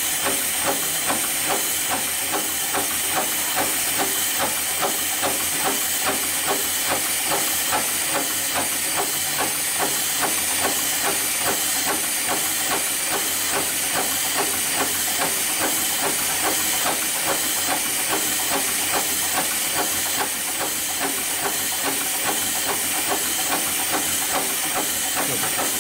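Heavy-duty rope sewing machine stitching a rope eye splice, its needle stroking at a steady, even rhythm over a constant hiss.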